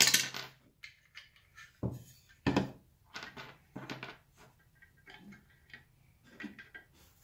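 Hard plastic parts of a MicroJig GRR-RIPPER push block knocking and clacking as they are handled, fitted together and set down on a workbench, with a series of separate sharp knocks, the loudest in the first few seconds and lighter ones later.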